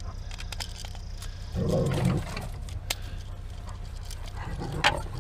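Light clicks and taps of a screwdriver working the terminal screws on a GFCI outlet, over a steady low hum, with a brief low rumbling sound about two seconds in.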